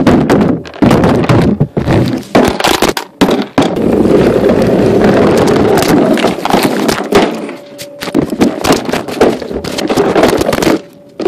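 Plastic toy Barbie Jeep tumbling and crashing on concrete: a run of loud knocks and clatters, with a stretch of continuous scraping and rattling in the middle.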